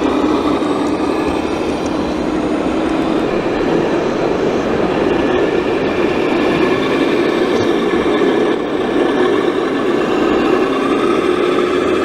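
Toy construction vehicle's small electric motor running with a steady whine, its pitch sagging slightly and then rising again near the end.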